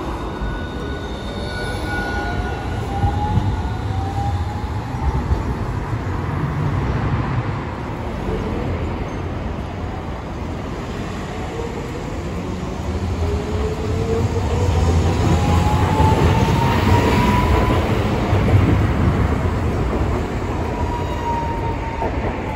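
Hiroden electric trams on street track: a low-floor articulated tram moving off past the stop, then another tram running along the road among traffic. The trams give a steady rumble with rising electric motor whines as they gather speed, loudest about two-thirds of the way through.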